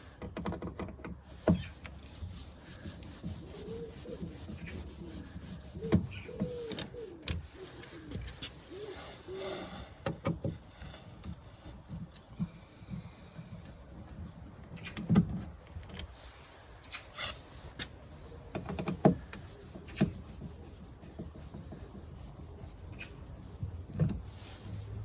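Hand work on a Land Rover Freelander 2 rear door trim: scattered clicks and knocks as screws and trim parts are undone, with a few short squeaks in the first ten seconds or so.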